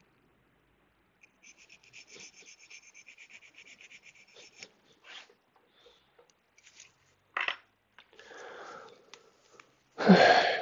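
Rhythmic rubbing and scattered small clicks of hands working at a repair bench. About ten seconds in comes a louder clatter as the Dell XPS 13 Plus laptop is lifted and turned over on the mat.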